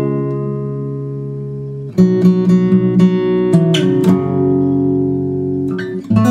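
Acoustic guitar background music: a chord is struck and left to ring, fading, then a new chord comes in about two seconds in and another near the end.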